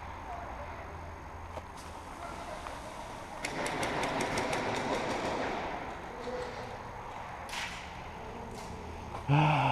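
Airsoft gun firing a rapid full-auto burst of about ten shots, then two single shots. A short loud voice cuts in near the end.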